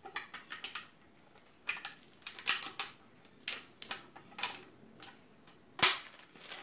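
Plastic film crinkling and rustling in short irregular bursts as it is folded and pulled tight over the end of a cardboard tube, with one loud sharp snap near the end as the rubber band is let go.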